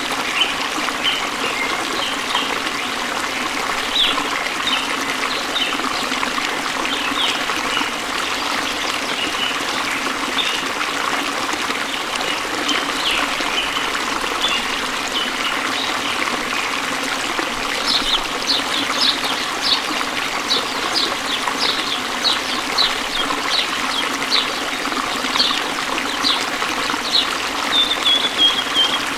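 Steady trickling running water, with short high chirps scattered over it that come thicker in the second half and end in a quick falling run of notes near the end.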